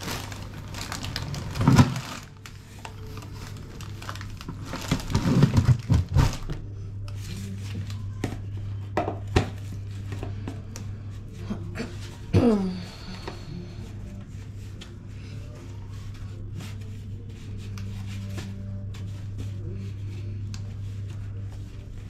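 Dough being kneaded in a metal bowl: dull thumps and clatter come in bursts in the first six seconds, then single knocks, over a steady low hum. A short falling squeak comes about twelve seconds in.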